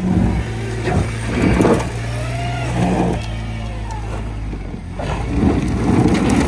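Holden Adventra's V6 engine running under throttle on a steep dirt climb, revs rising and falling, wheels spinning in loose dirt. This is the brake-based traction control braking the slipping wheel to send drive to the wheel with grip.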